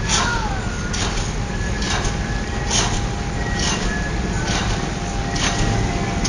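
Pile-driving hammer striking a concrete sheet pile, sharp clanking blows repeating evenly a little faster than once a second over the steady low rumble of the rig's machinery.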